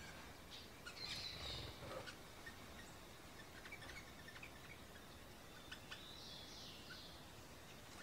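Faint chirps and call notes of small songbirds: a short chirp about a second in, scattered ticking notes, and two quick chirps close together near the end.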